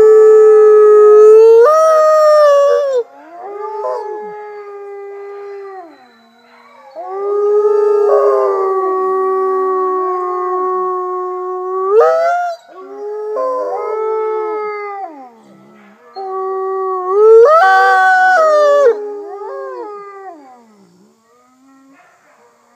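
Mexican gray wolf howling: a series of long howls held near one pitch, several bending sharply upward then dropping away, with other wolves' howls overlapping at different pitches in chorus. The howling fades out near the end.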